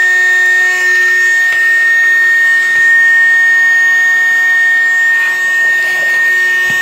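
Mini Henry vacuum cleaner running steadily, its small motor giving a high, constant whine as it sucks up dirt.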